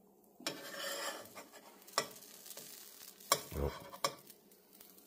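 Pancake batter sizzling in butter in a hot skillet while a metal spatula scrapes under a pancake and flips it. Sharp taps of the spatula on the pan come about two, three and four seconds in, with a dull thump just after the second tap.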